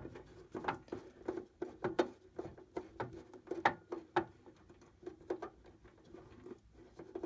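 Small irregular clicks and scratches of a screwdriver working a screw terminal on an irrigation controller's terminal strip, over a faint steady hum.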